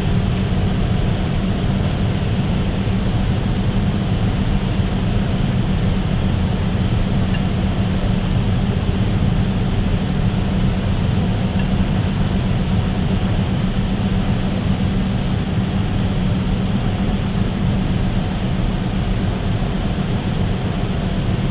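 Steady, deep hum of a kitchen ventilation fan, with two light clinks of metal tweezers against a porcelain plate about seven and eleven seconds in.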